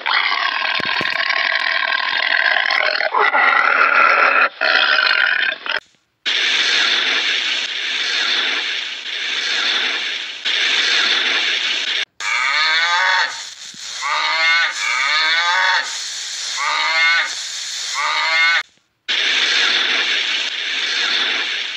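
Animal sounds in short clips cut one after another, with a run of about six falling calls, each under a second, in the second half.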